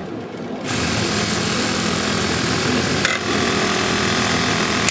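UZU automatic polo-shirt placket machine running its sewing cycle: the direct-drive servo sewing head stitches at speed in a steady, loud machine buzz that starts about a second in, with a brief catch about three seconds in, as the machine sews and cuts the placket.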